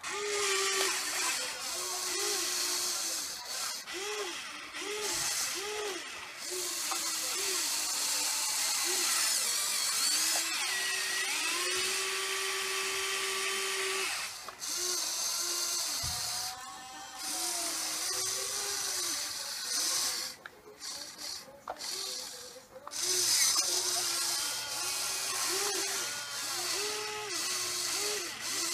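Huina 580 RC excavator's electric motors whining in many short bursts that rise and fall in pitch as the boom, arm and bucket move, over a steady high hiss of motor and gear noise.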